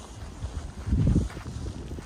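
Snowstorm wind buffeting a phone's microphone, with a strong low rumbling gust about a second in. Footsteps in snow sound faintly underneath.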